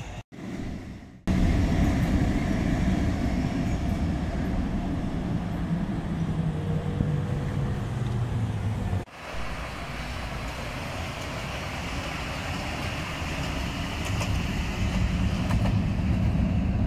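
Duewag B80D tram running along its track with a steady low rumble, mixed with passing road traffic. The sound breaks off briefly about a second in and drops suddenly about nine seconds in, then builds again.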